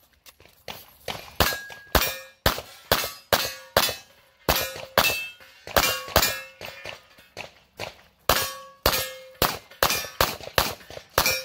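Rapid 9 mm pistol shots from a Glock 34 Gen 5, fired in quick pairs and clusters with short pauses between. Many shots are followed by the brief ring of struck steel targets.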